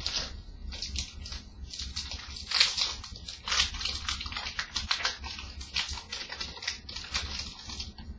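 Plastic wrapper of a hockey card pack crinkling and rustling in quick, irregular bursts as it is handled and opened, with the louder crackles a few seconds in.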